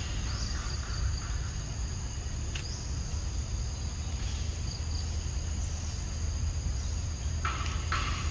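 Forest insects trilling in a steady, high-pitched chorus over a low steady rumble. Near the end comes a quick run of sharper, noisier sounds.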